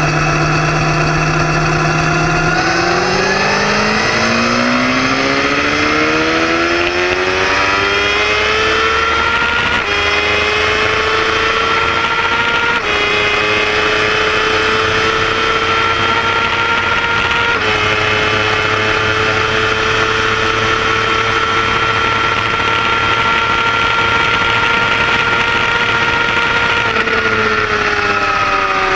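Kawasaki ZX-6R 636's inline-four engine heard from onboard, pulling hard in third gear from low revs in a roll race: after a couple of seconds at a steady low note it climbs in pitch for several seconds, then holds a high, near-steady note, and falls in pitch near the end. Wind rush runs under it throughout.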